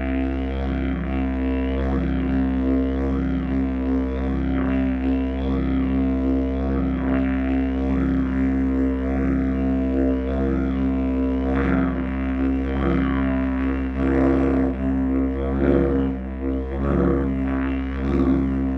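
Didgeridoo in B, made by Paco Moreno, played as a very low, unbroken drone, its upper tones swelling and shifting in a steady rhythm about once a second.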